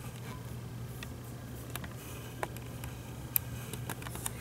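Quiet room with a steady low hum and a few faint, scattered clicks of light handling.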